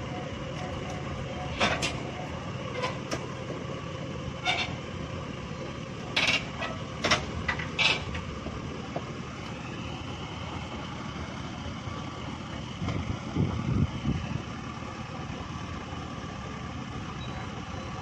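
Shibaura SD 2200 tractor's diesel engine running steadily as the tractor moves on steel cage wheels. Several sharp clanks come in the first half, and a few low thuds come about two thirds of the way through.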